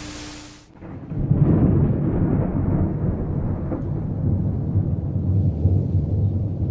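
Thunder: a low rolling rumble that swells in about a second in and keeps going, uneven in loudness.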